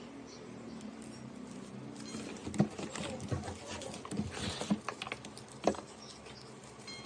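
Slime being squished and poked by hand, giving a run of sharp clicks and pops that starts about two and a half seconds in, the loudest pops near the start and the end of the run.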